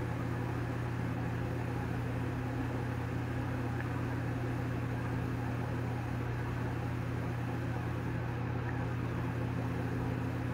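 Steady, unchanging low hum with an even hiss behind it: room background noise from a running machine or electrical hum.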